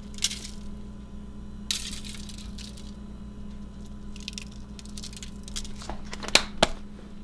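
Plastic shaker of grated Parmesan cheese shaken in several short bursts, the cheese hissing and pattering onto foil over the fish. Two sharp clicks near the end, over a steady low hum.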